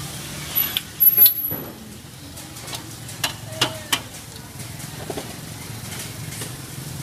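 Battered strips deep-frying in a large wok of hot oil, the oil sizzling steadily. A loud clatter comes about a second in, and a few sharp clicks follow around the middle.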